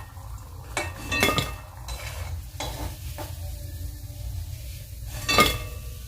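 A metal utensil clinking and scraping against a kadai as fried bread pakoras are lifted out of hot oil. The oil sizzles faintly underneath. There are a few separate clinks, and the loudest clatter comes about five seconds in.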